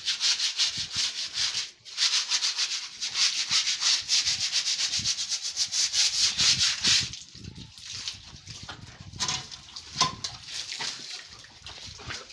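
Stiff straw broom scrubbing the wet, algae-coated concrete floor of a drained fish pond in quick, rapid strokes. There is a short break just before two seconds in, and the scrubbing stops about seven seconds in, leaving fainter scattered sounds.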